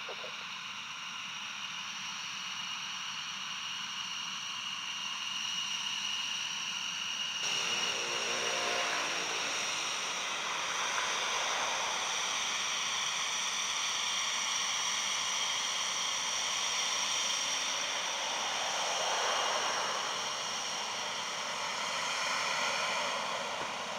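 Panavia Tornado's twin RB199 turbofan engines running at taxi power as the jet rolls past, a steady high whine over a rushing hiss. The sound grows fuller about a third of the way in and swells to its loudest in the second half as the jet comes closest.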